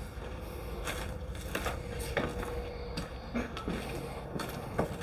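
Footsteps crunching and scuffing over broken plaster and wood debris on a bare floor: scattered light crackles and clicks.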